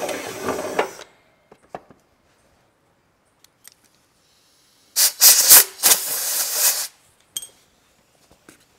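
A cordless drill runs for about the first second, then stops; a few small clicks follow. Near the middle comes the loudest sound, a burst of compressed air hissing for about two seconds from a blow gun clearing chips from the mounting hole.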